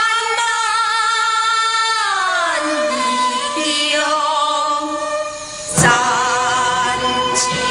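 A woman singing a slow Taiwanese opera (gezaixi) aria in long held, wavering notes. Her voice glides down a couple of seconds in, and a new phrase begins with a sharp start near the end.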